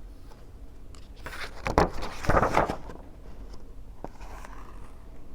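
Paper rustling as a picture book's page is handled and turned, a short scraping rustle between about one and three seconds in, otherwise faint room noise.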